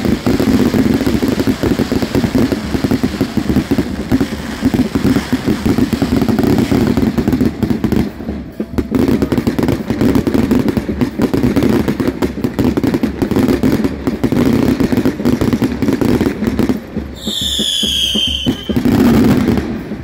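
Fireworks display: a loud, dense, continuous crackle of many small reports from fountains and aerial bursts, easing briefly about eight seconds in. Near the end a high whistle about a second and a half long, falling slightly in pitch, rises over it as the crackling dies away.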